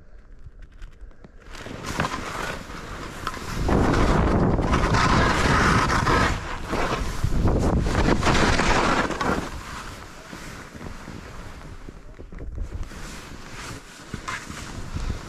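Wind noise buffeting the microphone: a rushing hiss and rumble that swells loud for several seconds in the middle and then drops back.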